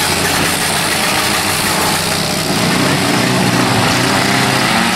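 Engines of several small demolition derby cars running and revving together, a loud steady mix whose pitches rise and fall.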